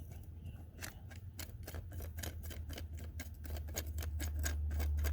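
A quick run of sharp, irregular clicks and taps from the jack handle's extension rods being fitted together to lower the spare tire, over a steady low rumble that grows louder near the end.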